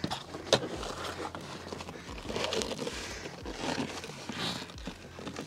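Molded rubber floor liner being pushed, scuffed and worked into a Jeep Wrangler's passenger footwell by gloved hands, with a sharp knock about half a second in. The installer grunts with effort as he forces the stiff liner under the trim.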